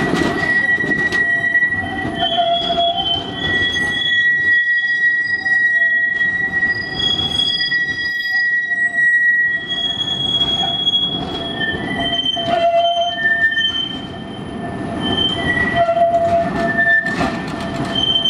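Škoda 15T tram's steel wheels squealing as it rounds the tight curve of a tram turning triangle: several high squeal tones that come and go and shift in pitch, over a low rumble of wheels on rail.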